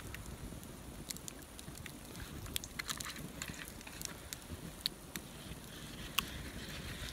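Wind rumbling on the microphone, with scattered sharp crackles and ticks from the campfire.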